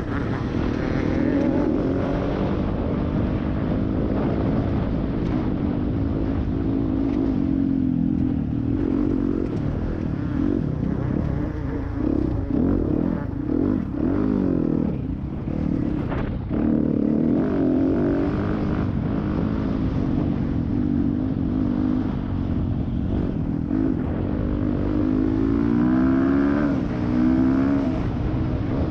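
Yamaha YZ250F four-stroke single-cylinder dirt bike engine under hard riding, its pitch swinging up and down with throttle and gear changes and climbing repeatedly near the end as it accelerates. A steady wind rumble on the microphone runs under it.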